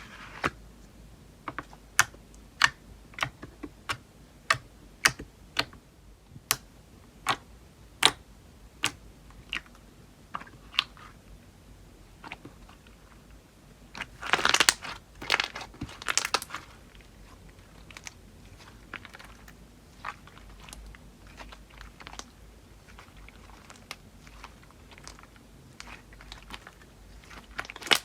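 Slime being squeezed and poked by hand, giving sharp clicking pops about one or two a second. About halfway through come a few seconds of louder crackling and crunching, then the pops grow sparser and fainter.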